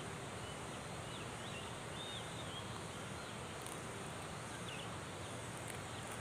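Outdoor countryside ambience: a steady high insect drone with scattered short bird chirps.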